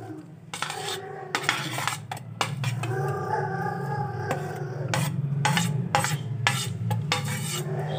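A metal spoon scraping and clinking against a ceramic plate as sliced banana and guava are pushed off into a bowl, in a run of short, uneven scrapes.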